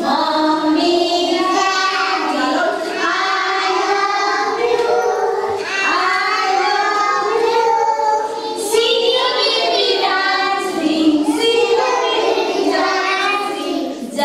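A group of young children singing together, a continuous sung song carried by many small voices.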